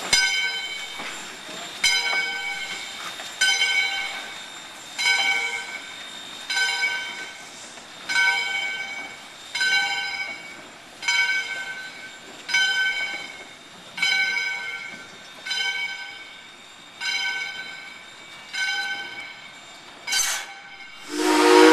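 Valley Railroad No. 40 steam locomotive's bell ringing steadily, about one stroke every second and a half, as the engine pulls away. Near the end its steam whistle starts to blow, louder than the bell.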